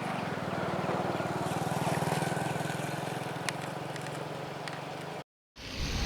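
A motor vehicle's engine running steadily, a low even hum with road and wind noise. Near the end the sound cuts out completely for a moment, then comes back louder and rougher.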